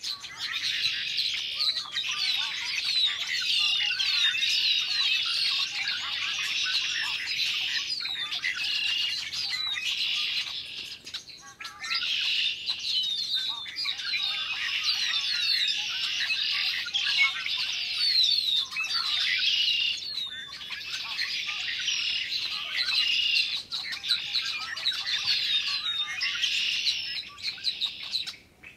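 A large flock of red-winged blackbirds calling and singing all at once: a dense, continuous chorus of overlapping chirps, whistles and trills, dipping briefly a couple of times.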